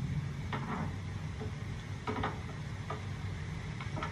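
Horror film soundtrack in a tense, quiet moment: a low steady hum with a few short, irregularly spaced clicks over it.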